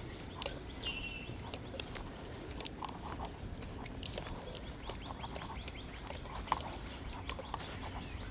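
Small songbirds calling, with one short clear chirp about a second in and scattered faint high chirps and clicks, over a steady low outdoor rumble.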